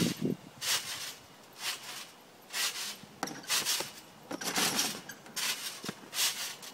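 Trampoline springs and mat creaking and rasping with each bounce, about once a second, as someone jumps on it, with a couple of sharp knocks near the end.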